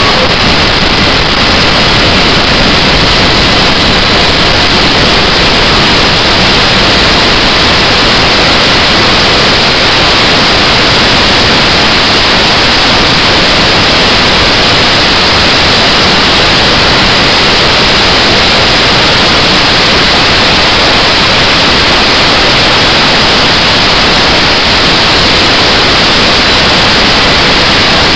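Loud, steady rush of pressurised air flowing through an APU bleed valve on a test rig, with a faint thin whistle in it.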